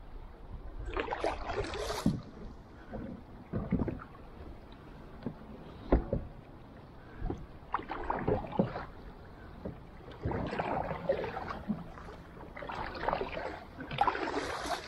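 Kayak paddle strokes in the water, a splashy swish about every two seconds, over a low rush of moving water.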